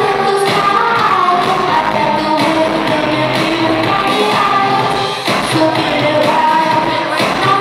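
Live electronic pop music from a band with synthesizers and a sung vocal line, with long held notes and gliding pitches, and a brief dip in loudness about five seconds in.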